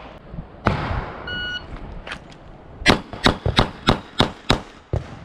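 A shot timer's short electronic start beep about a second in, then a rapid string of six 9mm shots from a Glock 45 pistol, about three a second.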